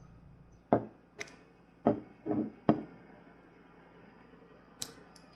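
Sharp clicks and small knocks of a Victorinox Huntsman Swiss Army knife being worked by hand, its tools being pried and snapped against their springs. About five clicks come in the first three seconds and two more near the end.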